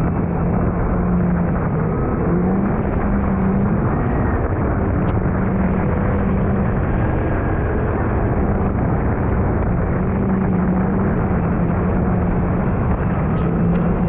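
Kawasaki Ultra 310LX personal watercraft running at speed, its supercharged four-cylinder engine giving a steady drone that wavers slightly in pitch under a loud rush of wind and spray.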